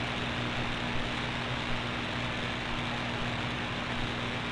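Shortwave radio static from a software-defined receiver tuned to a frequency with no station: a steady hiss with a low, steady hum underneath.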